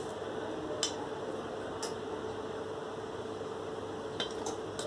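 A few light clicks and taps from small items being handled on a tabletop, two near the start and a quick run of three near the end, over a steady hiss and a low hum.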